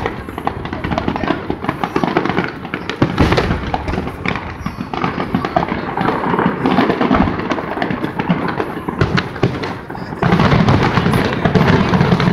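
Aerial fireworks bursting: a run of bangs and crackles, with a strong bang about three seconds in and a louder, denser barrage from about ten seconds in.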